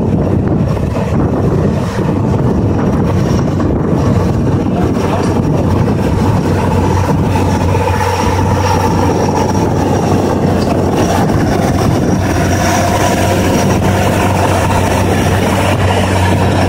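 Hürlimann Master 165 hp tractor's diesel engine working steadily under load while pulling a four-furrow plough, its hum becoming clearer about halfway through as the tractor comes close. Wind rumbles on the microphone at first.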